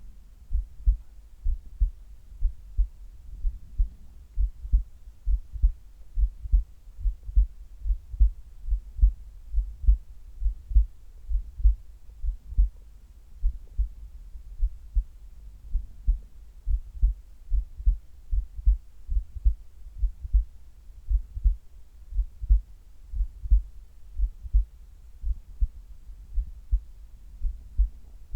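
A human heartbeat, picked up close on the chest during sit-ups. It is a regular run of low, thudding lub-dub beats that goes on without a break. The heart is working under the strain of the exercise, which had become quite hard by this point.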